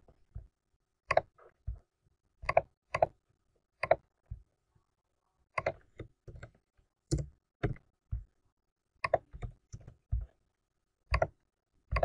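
Computer mouse and keyboard clicks: about twenty short, sharp clicks at an uneven pace, with near silence between them.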